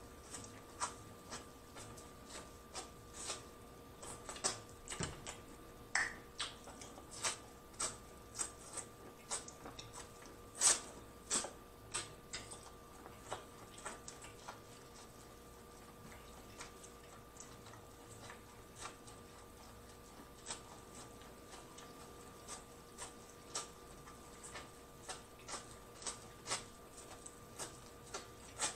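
Close-miked biting and chewing on boiled corn on the cob: irregular short, crisp clicks and crunches as kernels are bitten off the ear, one or two a second, thinning out in the middle. A faint steady hum sits underneath.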